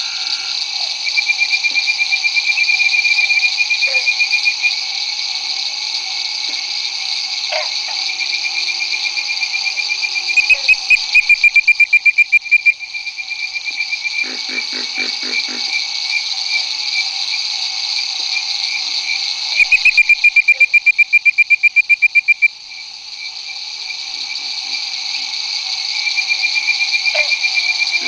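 Bird-voiced treefrogs calling: runs of quick, bird-like whistled notes, about five a second, the two loudest runs about ten and twenty seconds in. Pig frogs give short series of low grunts, and a steady high chorus of night insects and frogs runs underneath.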